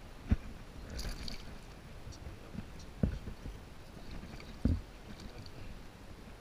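Water splashing and sloshing as a hooked bass is grabbed and lifted by hand in shallow water, with three dull low thumps about a second and a half apart.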